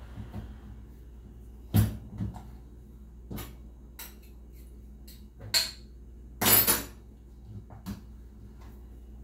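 Kitchen utensils knocking and clinking against a bowl in a handful of separate sharp hits, with a longer rattling clatter past the middle.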